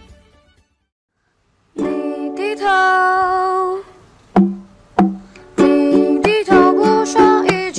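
Background music: after a short silence, a song starts about two seconds in with a held sung note, then a plucked ukulele-like accompaniment in a steady rhythm with singing.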